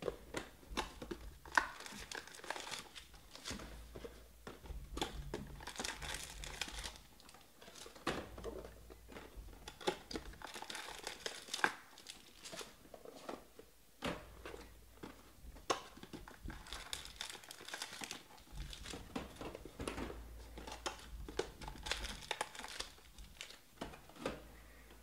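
Wrapped trading-card packs crinkling and cardboard hobby boxes being handled as the boxes are opened and the packs pulled out and stacked, in repeated rustling bursts with scattered sharp clicks and knocks.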